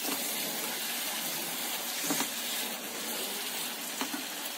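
Vermicelli in sugar syrup sizzling in a hot pan as it is stirred with a silicone spatula, a steady hiss with a couple of light knocks of the spatula about halfway through and near the end.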